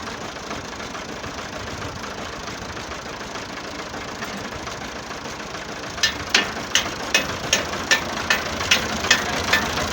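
Tractor engine running steadily. About six seconds in, a run of about ten sharp clicks starts, evenly spaced at roughly two and a half a second, louder than the engine.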